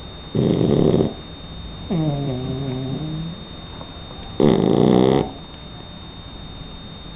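Three-month-old Shar Pei puppy snoring in its sleep: three loud snoring breaths about two seconds apart, the middle one a longer, pitched snore that slides down and holds low.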